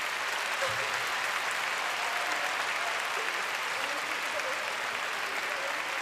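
Large audience applauding steadily, with a few faint voices underneath.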